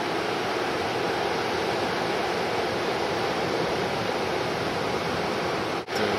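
Steady wash of breaking ocean surf and whitewater, with a brief dip in level near the end.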